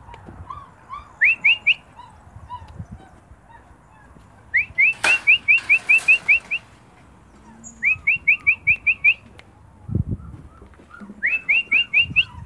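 Quick rising whistled chirps in four bursts of about five to ten notes each, roughly six notes a second, with fainter whining notes lower in pitch between them and a dull thump about ten seconds in.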